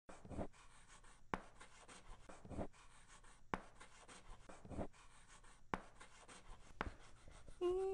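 Chalk on a chalkboard: a slow run of writing strokes about once a second, soft scrapes alternating with sharp taps. Near the end a voice starts humming a gliding tune.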